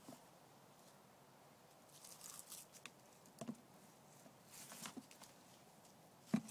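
A puppy mouthing and knocking a flexible plastic tub about on grass: scattered soft rustles and hollow plastic knocks, the loudest knock near the end.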